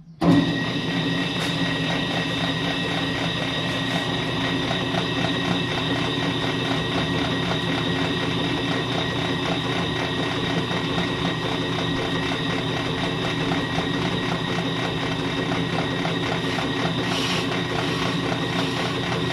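Ammco brake lathe switching on just after the start, then running steadily with a hum and a steady high whine as it spins a brake rotor on its arbor for a scratch test, which checks whether the rotor runs true.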